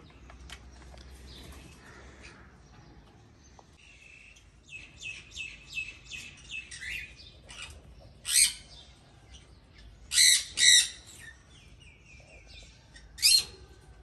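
Caged parrots calling: a run of quick high chirps, then four loud, sharp calls spaced one to three seconds apart.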